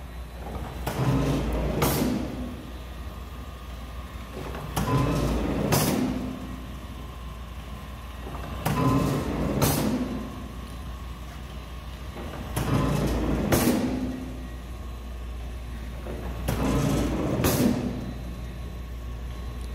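Thomson die-cutting press running in automatic cycles, one stroke about every four seconds, five in all. Each stroke lasts about a second, opening and ending with a sharp clack, the closing clack the louder, over a steady low hum from the machine's drive.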